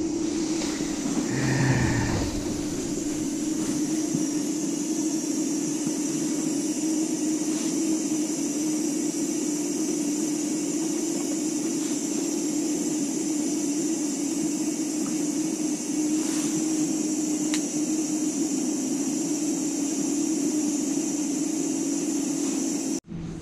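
A steady mechanical whirring hum with a hiss above it, unchanging throughout.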